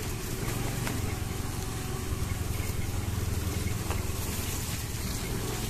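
Motor scooter's engine running steadily while it is ridden slowly over a rough, potholed dirt road, with a few faint clicks.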